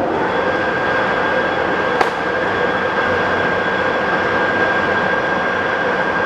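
Mori Seiki MS1250 engine lathe running steadily with its spindle at 395 RPM: a steady gearhead hum with a high whine held on one note. A single sharp click about two seconds in.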